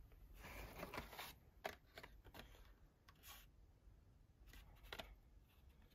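Faint rustles and light clicks of carded Hot Wheels cars, with cardboard backings and plastic blisters, being handled and pulled from a cardboard case.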